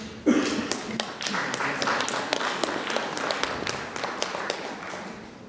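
Audience applauding, many hands clapping, gradually dying away toward the end.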